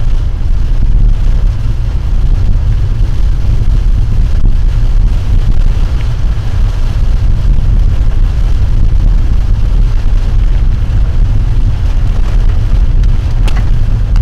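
Loud steady low rumble of a vehicle in motion, mixed with wind buffeting the microphone, with a few faint ticks near the end.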